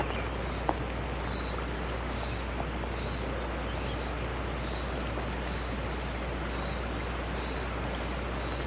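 Steady outdoor background noise with a low rumble, over which a small high chirp repeats about twice a second, as from a bird or insect calling. A single light click sounds near the start.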